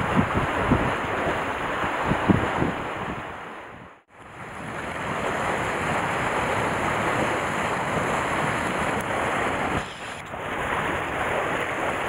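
Sea waves washing against the rocks below a breakwater, mixed with wind buffeting the microphone in low gusts. The sound fades out to silence for a moment about four seconds in, then returns as a steady wash.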